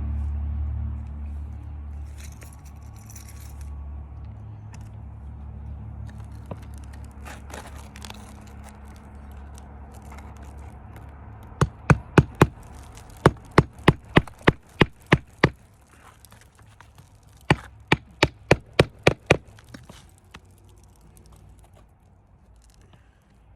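Hammer blows in three quick runs of sharp strikes, about three to four a second, typical of nailing or knocking on roof shingles during a repairability test. A low rumble fades away before the strikes begin.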